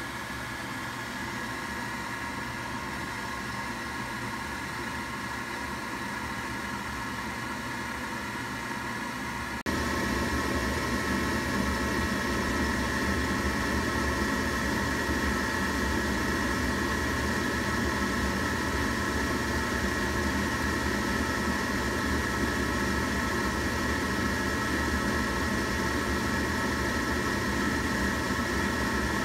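Gas furnace draft inducer motor running at speed with a steady whine, becoming abruptly louder about ten seconds in, while the new hot-surface igniter heats up.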